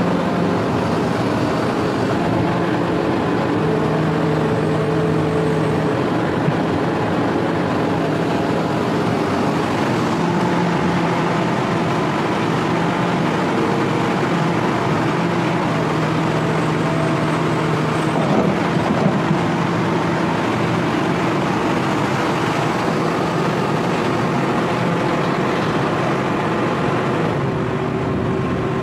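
Hitachi ZX350-5G excavator's diesel engine and hydraulics running close by. A steady drone carries a pitched hum that swells and fades every few seconds as the controls are worked.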